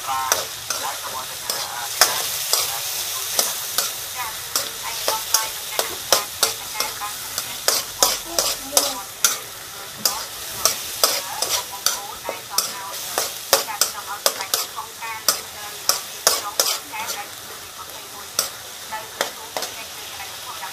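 Garlic and fermented soybeans frying in hot oil, sizzling steadily while a spatula stirs them, with frequent sharp scrapes and taps of the spatula against the pan.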